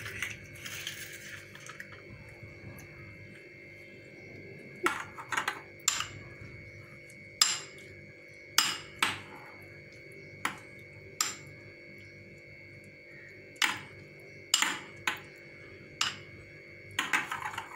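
A spoon clinking against a glass bowl while beating eggs with chopped onion and chilli, in irregular sharp clinks from about five seconds in, with a steady faint high hum underneath.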